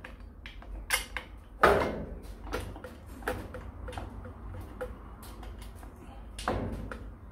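Screws and small metal parts clicking and knocking as they are handled and fitted to a motor mounting plate, a few scattered taps with the loudest knock about one and a half seconds in and another near the end.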